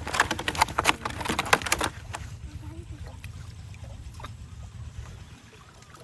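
Rapid splashing and slapping in water for about two seconds, then it dies down to a low rumble with faint scattered sounds.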